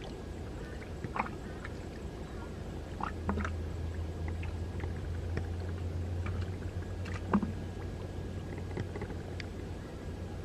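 Shallow lake water sloshing and lapping, with a few small splashes and clicks about a second, three and a half and seven and a half seconds in, over a steady low hum.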